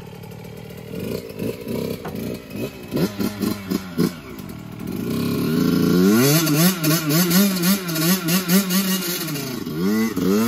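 Small dirt bike's engine revving, its pitch rising and falling over and over: short throttle blips at first, then much louder from about halfway through as the bike pulls away and rides across the mud.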